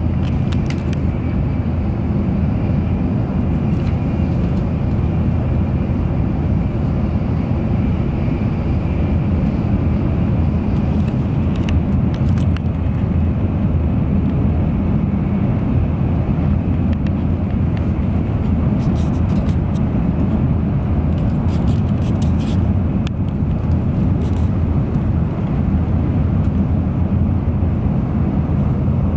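Cabin running noise of an N700 series Shinkansen travelling at speed: a steady low rumble, with a few faint clicks.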